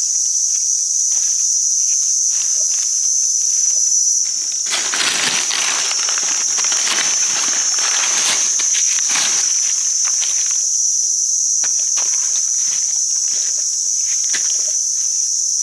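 Forest insects keep up a steady high drone throughout. For several seconds in the middle comes a stretch of rustling and crunching in dry leaf litter, with scattered small snaps and clicks before and after.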